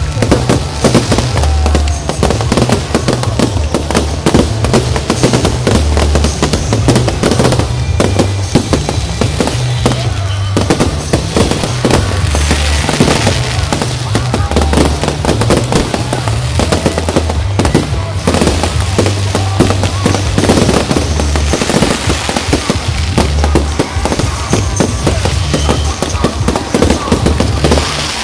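Fireworks display: rapid bangs and crackling follow one another without a break, over loud music with a heavy bass.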